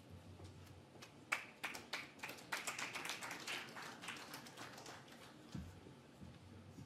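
Faint, scattered audience applause, starting about a second in and thinning out after about four seconds.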